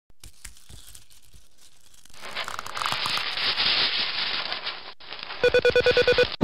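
Intro sound effects for an animated logo: a crackling, fizzing hiss like burning sparks builds from about two seconds in, then near the end a rapid stutter of about ten short buzzing beeps at one pitch.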